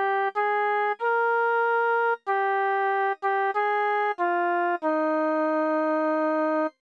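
MIDI keyboard playback of a hymn's men's voice part: a single melody line, one note at a time, about eight notes ending on a long held note that cuts off shortly before the end.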